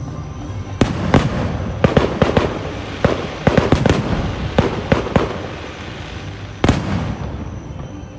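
Aerial fireworks shells bursting: a rapid run of sharp bangs and crackles over several seconds, then one last loud bang near the end.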